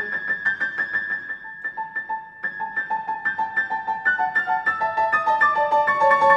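Grand piano played solo in a contemporary classical piece: quick, evenly repeated notes in the middle and upper registers, getting louder toward the end.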